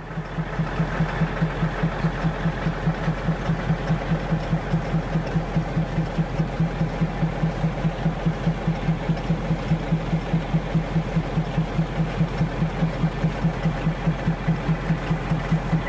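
An engine running steadily with an even thumping beat, about five a second.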